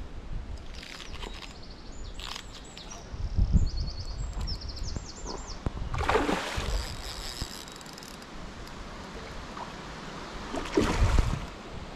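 Wind gusting on the microphone beside a river, with two short splashy rushes as a spinner lure is fished at the surface, and a bird's quick run of high chirps about four seconds in.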